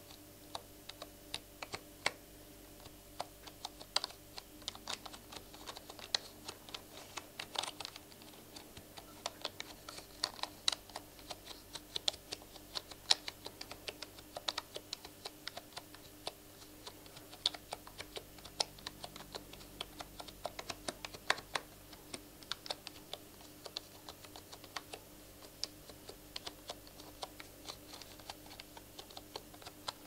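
Keys on the numeric keypad of a black HP computer keyboard pressed one at a time close to the microphone: irregular key clicks, a few each second.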